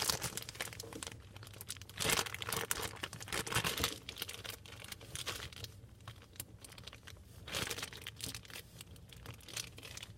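Slime and its plastic container handled by hand: irregular crinkling and crackling noises in short bursts.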